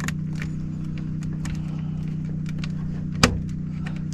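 Small metallic clicks and ticks of wires and a tool being handled at a zone damper motor's terminals, with one louder sharp click about three seconds in, over a steady low machine hum.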